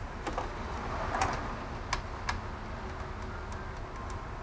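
Light, irregular clicks and taps from hands handling cables and connectors inside a metal PC chassis, over a steady low hum.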